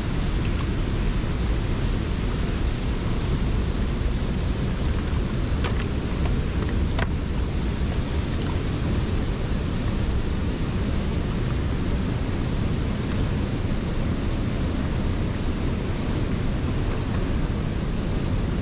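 Steady rush of a waterfall and the whitewater churning below it, an even, unbroken noise heaviest in the low end.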